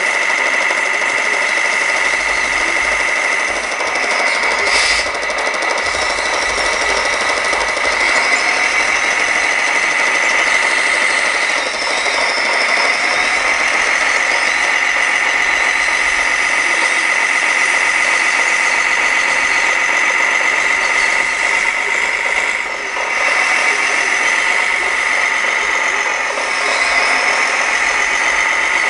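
Scale radio-controlled dump truck running and crawling slowly through loose dirt: a steady mechanical running sound with a constant high whine, dipping briefly near the end.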